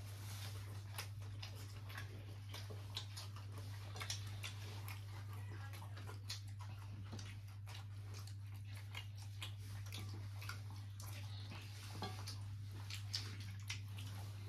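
Scattered small clicks and taps of people eating a meal, chewing and handling food and plates, over a steady low hum.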